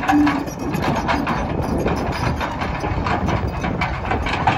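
Link-Belt 160 X2 hydraulic excavator's diesel engine running as the machine moves on its steel tracks, with irregular clanking throughout. Its travel alarm sounds to warn that the machine is moving.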